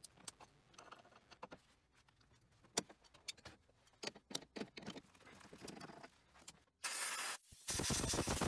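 Large 1-inch by 8 TPI hand tap turned with an adjustable wrench, cutting the thread in a flange nut held in a lathe chuck: faint, scattered metallic clicks and scrapes. Near the end come two short bursts of loud rushing noise that stop abruptly.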